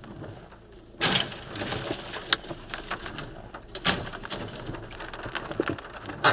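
A box van rolling over onto its side: a sudden loud crash about a second in as the body hits the road, followed by scattered clattering and scraping of debris with a few sharp knocks, heard from inside a car behind the windscreen.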